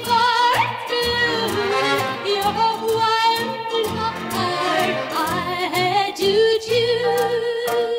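Instrumental break of a 1957 orchestral pop ballad, with a string section carrying the melody in sustained, vibrato-laden lines over the band's beat. There is a quick upward slide about half a second in.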